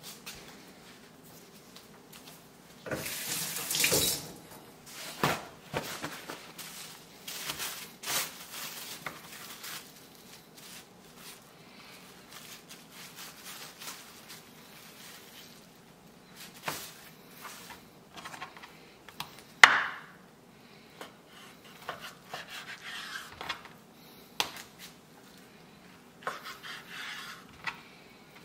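Plastic wrap crinkling and rustling as a halibut fillet is unwrapped by hand, with scattered taps and knocks on a wooden cutting board as the fish is cut into strips with a knife.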